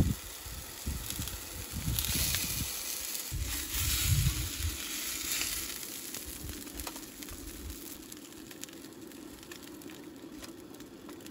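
Whitefish fillets sizzling in a hot cast-iron skillet just after lemon juice is squeezed over them. The sizzle is loudest in the first half, with a few low bumps, and fades after about six seconds as the fish is lifted out with a spatula.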